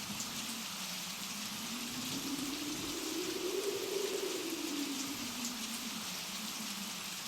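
Blizzard wind howling over a steady hiss of blown snow, its pitch rising to a peak about four seconds in and then falling away.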